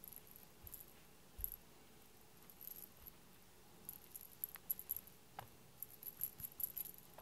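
Faint scattered clicks and small metallic tinkles, coming thicker in the second half, as a cat bats at a fluffy feather teaser toy.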